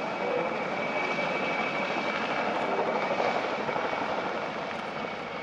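PZL Mi-2 helicopter's twin turboshaft engines and main rotor at power as it lifts off into a low hover, a steady high turbine whine over the rotor's noise.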